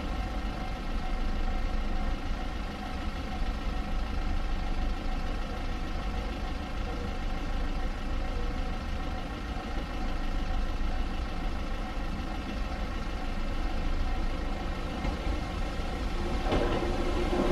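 Gakunan Railway 7000-series electric railcar giving off a steady mechanical hum with several held tones over a low rumble. It grows louder about a second before the end as the train gets close or gets under way.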